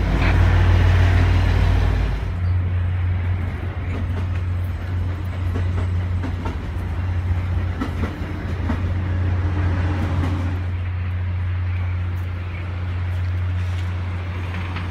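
VIA Rail passenger train rolling slowly past the platform. The diesel locomotive rumbles loudly for the first two seconds as it goes by, then a steady low hum and wheel noise continue as the coaches pass, with faint clicks from the wheels.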